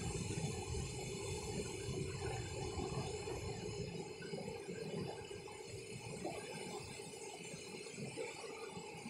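Quiet, steady outdoor background noise, with a low rumble during the first few seconds.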